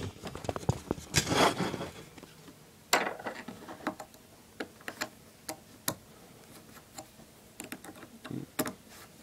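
Irregular light clicks and ticks of a small screwdriver working the four screws out of a Walbro-type weed whacker carburetor, with a sharper click about three seconds in.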